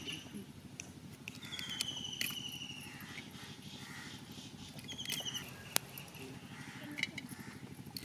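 Crab shells and legs cracking and snapping as raw crabs are cut on an upright fixed blade (boti) set in a wooden plank, a few sharp clicks scattered through. A bird's rapid trill comes twice, and a low steady hum runs underneath.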